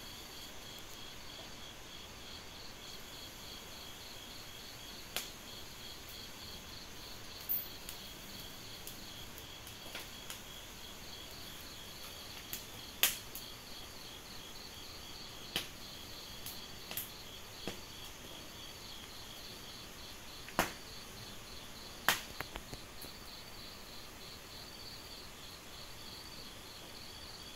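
Steady pulsed trilling of a night insect chorus, with several sharp isolated pops and clicks now and then.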